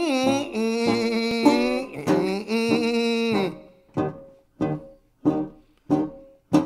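A dog howling along to country-style music with plucked guitar, long wavering howls that stop about three and a half seconds in. After that only single plucked string notes are left, roughly one every two-thirds of a second, each dying away.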